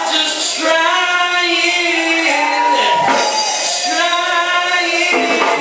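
Gospel singing: a single voice holding long notes in three phrases, with brief breaks about three and five seconds in, one phrase sliding down at its end.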